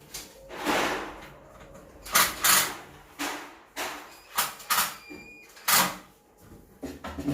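A run of short scrapes and knocks, about nine in all, from handling a top-loading washing machine and its fittings during installation.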